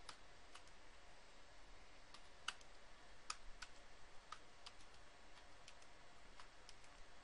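Faint computer keyboard keystrokes, sparse and irregular, some in quick pairs, as 'y' and Enter are typed in answer to a series of install prompts.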